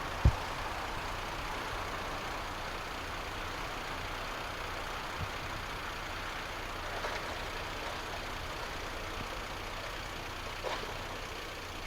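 Steady car cabin noise from a car moving slowly, engine and road rumble, with a single low thump just after the start.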